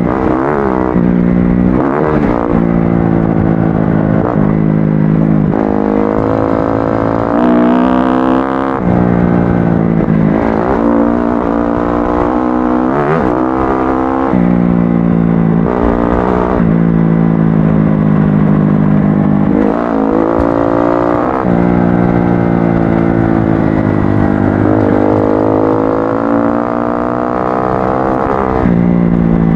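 Kawasaki KX-F four-stroke off-road motorcycle engine under way, revving up and easing off over and over, its pitch climbing and dropping every few seconds.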